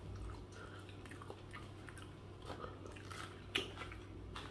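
A person chewing food, with a few soft wet mouth clicks scattered through, over a low steady hum.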